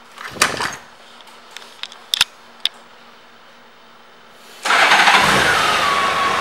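A few light clicks as the ignition key is handled, then about five seconds in a 2004 Honda Gold Wing's 1832 cc flat-six starts suddenly and settles into a steady idle. The engine's whine drops slightly just after the start and then holds steady.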